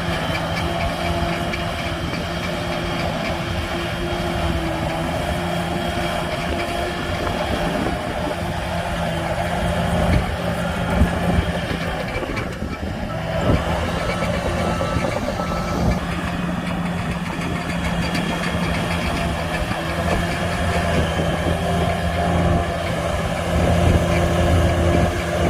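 Heavy earthmoving machine's diesel engine running at a steady pitch, with a brief dip about halfway through and a few short louder surges.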